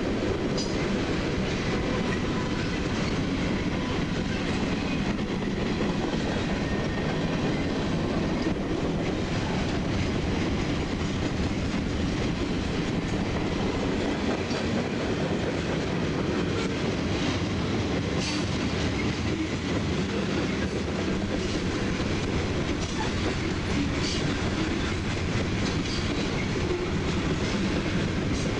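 Freight cars (tank cars, boxcars and covered hoppers) rolling steadily past on the track: a continuous rolling noise of steel wheels on rail, with scattered sharp clicks as the wheels pass over the rails.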